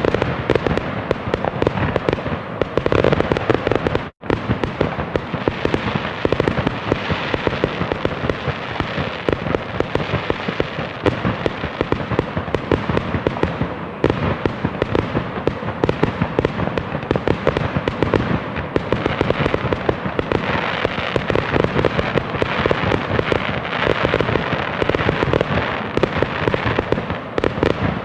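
A continuous barrage of fireworks: dense, overlapping bangs and crackling with no lull. The sound cuts out for a split second about four seconds in.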